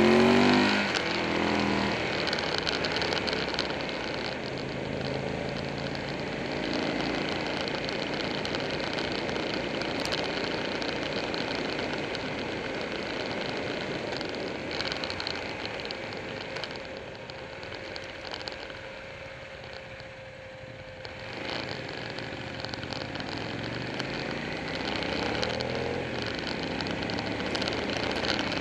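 Motorcycle engine running at road speed under a steady rush of wind on the microphone. The engine note falls away in the first couple of seconds, eases to its quietest about two-thirds of the way through, then rises again near the end.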